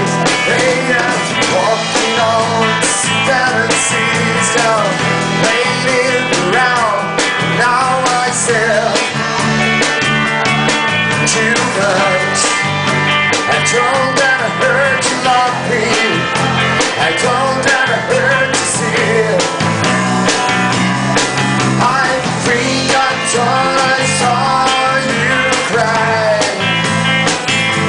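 Live rock band playing a song, with guitar.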